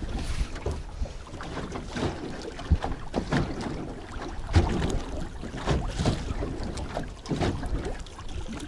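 Wind buffeting the microphone and small waves slapping against the hull of a small fishing boat, with a couple of sharp knocks against the boat, about three seconds in and again about four and a half seconds in.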